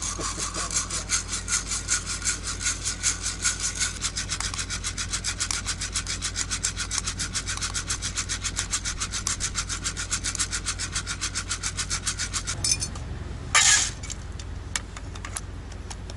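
Hand-cranked coffee mill grinding coffee beans: a fast, even rhythm of gritty scraping strokes that stops about twelve seconds in. A short, loud hiss follows soon after.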